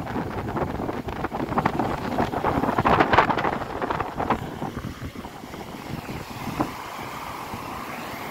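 Strong wind buffeting the microphone over rough storm surf breaking and churning. The gusts are loudest about three seconds in and ease off in the second half.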